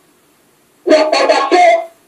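Near silence, then about a second in a person's voice speaks a short phrase that stops just before the end.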